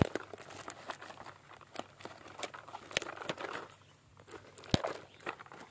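Plastic courier packaging crinkling and rustling in the hands as a parcel is torn open, with a couple of sharp clicks, one right at the start and one near the end.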